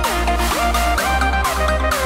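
Electronic dance music: a heavy bass beat about twice a second with gliding synth lines.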